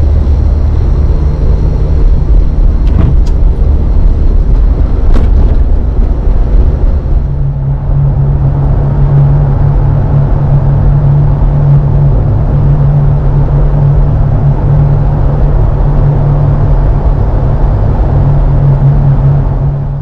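A Jeep driving: a loud, low rumble of engine and tyres. About seven seconds in, it settles into a steadier low drone.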